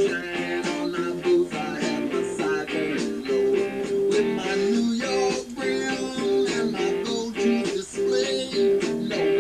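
Music playing from a radio: a guitar-led song with a steady beat.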